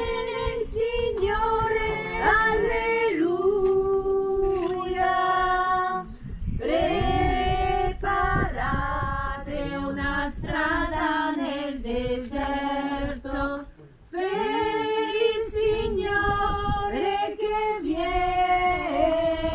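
Choir singing a hymn, women's voices leading, in long held phrases with short pauses for breath about six and fourteen seconds in.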